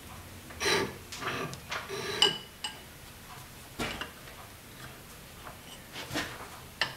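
Metal clinks and clanks of a chuck key working the jaws of a four-jaw lathe chuck while the chuck is turned by hand to clamp a cast iron workpiece. The loudest is a ringing clink about two seconds in, with scattered single clicks after it.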